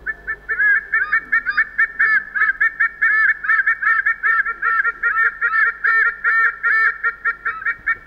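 White-bellied sea eagle pair calling in duet: a fast, even run of short, clipped calls, about three or four a second. It is the male and female's duet song, which serves to keep the pair bonded.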